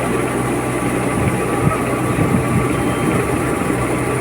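Engine of a paddy harvesting machine running steadily with a low, even drone.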